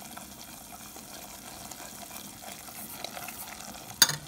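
Butter-and-flour roux sizzling in a saucepan as a wire whisk stirs it while it thickens, with one sharp knock about four seconds in.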